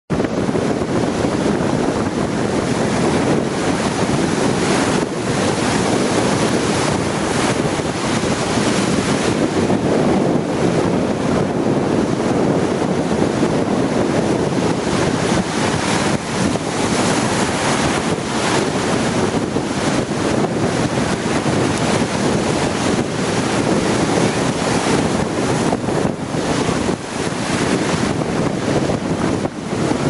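Stormy sea surf breaking and washing in a continuous rush, with strong wind buffeting the microphone.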